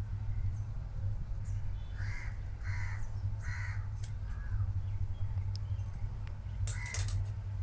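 A crow cawing three times in quick succession, over a steady low hum. A few light clicks come near the end.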